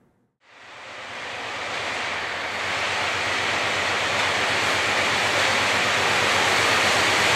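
MLW FPA-2U diesel locomotive coming toward the listener along the track. Its engine and running gear make a broad, steady noise that fades in after a moment's silence, grows louder over the first three seconds, then holds.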